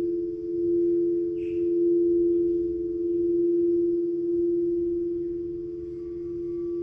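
Frosted quartz crystal singing bowls sustaining a steady ringing of two notes, kept going by a mallet rubbed around the rim. The sound swells and eases in slow waves.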